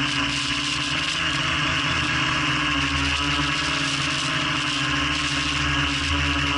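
Quadcopter's electric motors and propellers whirring steadily in flight, heard from the camera mounted on the craft, with a constant high whine over the hiss of the props.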